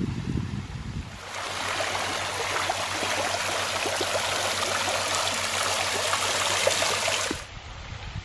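Running water, a steady dense rush with fine splashes, starting abruptly about a second in and cutting off sharply near the end. A low rumble fills the first second before it.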